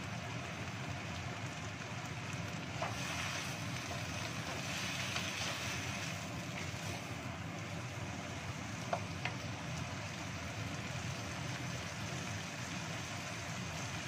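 Sliced green beans and carrots stir-frying in a wok, stirred with a wooden spatula that knocks lightly on the pan a few times, over a steady low rumble.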